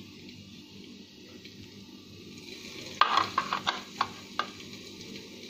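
A metal serving spatula tapping and scraping against a ceramic plate as a portion of dessert is slid off it: a quick run of sharp clicks about three seconds in, the first the loudest, over a faint steady hiss.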